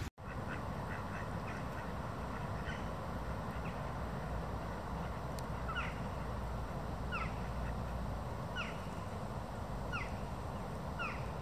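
Ducks calling: short, falling calls that come faintly and quickly at first, then more clearly about every second and a half, over a steady background rumble.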